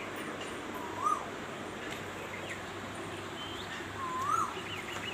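Asian koel calling twice, about three seconds apart, each call a short whistle that rises and then drops away. Fainter high chirps from other small birds sound over a steady background hiss.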